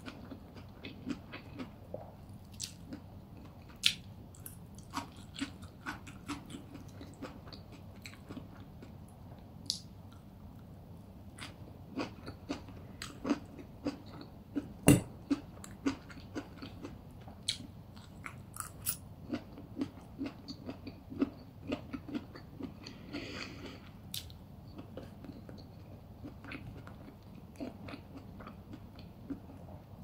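Close-miked chewing and biting of crispy funchoza glass-noodle salad with chicken and raw vegetables, with many sharp crunches scattered throughout. The loudest crunch comes about halfway through.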